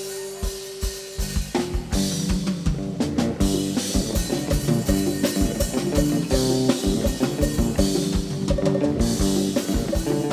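Live band music from a Thai rot hae procession-truck band: drum kit with bass and guitar playing an instrumental passage with a fast, steady beat. A held note fades at the start, and the full band comes in about a second and a half in.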